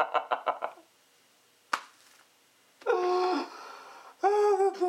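A man laughing in rapid even pulses that stop just under a second in. After a pause there is a single sharp click, then two drawn-out vocal sounds, each held on one pitch.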